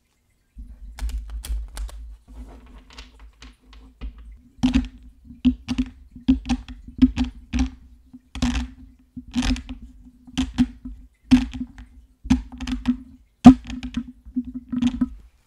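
ASMR tapping: an irregular run of sharp taps and clicks, two or three a second, each with a dull low thud, as fingers tap on a hard object on a table. One louder knock comes about two seconds before the end.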